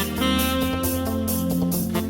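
Background instrumental music with guitar, bass and sustained melody notes, jazz-like in feel.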